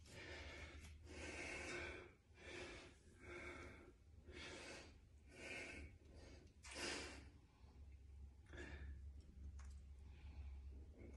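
A man breathing heavily, with a string of forceful breaths in and out about once a second that thin out near the end, the effortful breathing of a bodybuilder holding flexing poses. A faint low hum runs underneath.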